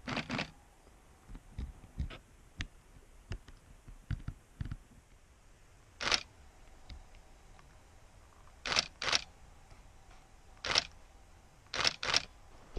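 Digital SLR camera shutter firing about seven times, each a short sharp click, some in quick pairs near the end, with softer low thumps and ticks in between.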